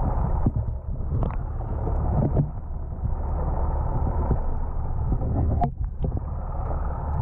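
Muffled, steady rush of water past an underwater camera's housing as the rig is wound up from the depths, with a few brief clicks and knocks.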